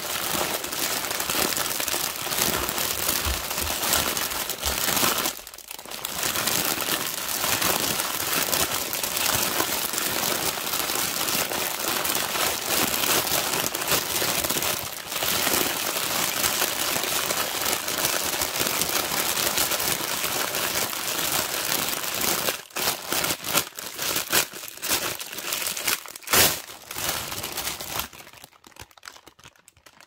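Polythene bag of baby spinach being squeezed and handled, with a dense, continuous crinkling and crackling of the thin plastic. There is a short break about five and a half seconds in. In the last quarter the crinkles thin out into separate crackles and stop shortly before the end.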